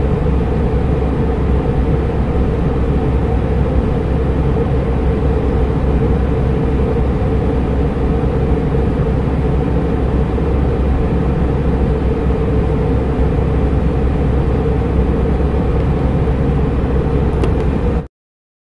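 Steady cabin noise of an airliner in cruise flight: a dense, even rush of engine and airflow noise with a steady hum, cutting off abruptly near the end.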